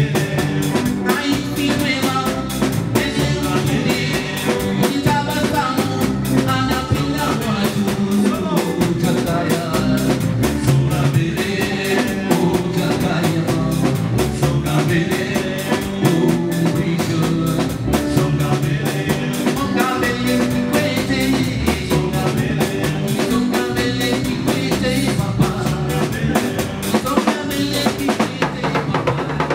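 Live band music: an electric guitar and a drum kit playing a steady beat, with a man singing into the microphone over it.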